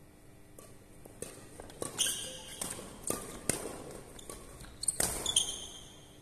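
Badminton doubles rally: a series of sharp smacks of rackets hitting the shuttlecock, loudest about two and five seconds in. Short high squeaks of court shoes on the hall floor come with the hardest hits.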